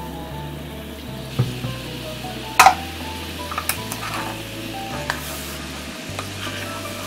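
A sweet soy-free dipping sauce of mirin, Worcestershire sauce, ketchup and sugar bubbling and sizzling in a small nonstick frying pan while a wooden spoon stirs it. The spoon knocks against the pan a few times; the loudest knock comes about two and a half seconds in.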